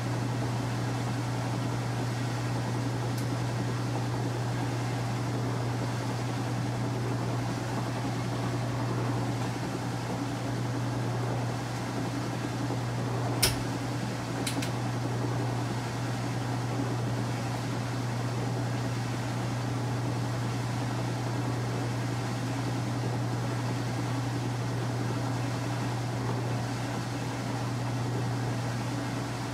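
Kenmore 800 Series top-load washer running with a steady low hum. Two sharp clicks come about a second apart near the middle, the first louder.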